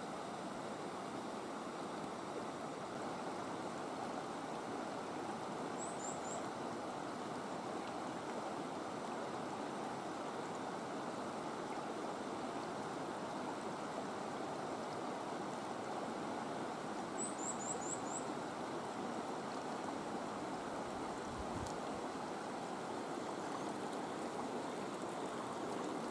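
Mountain river rapids, the Sumata River running over boulders: a steady rush of water. Two short runs of faint, high, thin chirps come through it, a few seconds in and again about two-thirds of the way through.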